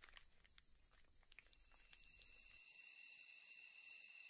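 Crickets chirping in a high, evenly pulsing trill that grows louder after about two seconds, with a few faint clicks in the first two seconds.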